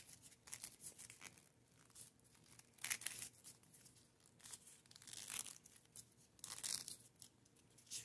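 Stiff cardstock rolled around a wooden dowel crinkling and rustling faintly as hands twist it, in irregular bursts with the loudest about three, five and nearly seven seconds in.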